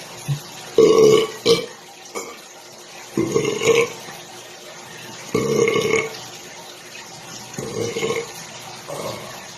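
A man burping repeatedly: four long belches, each under a second, coming about two seconds apart, with a weaker fifth near the end.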